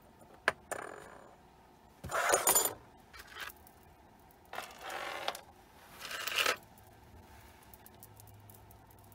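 Metal costume-jewelry earrings being handled and set down on a table: a few sharp clicks, then several short bursts of jingling and rustling, the last one about six seconds in.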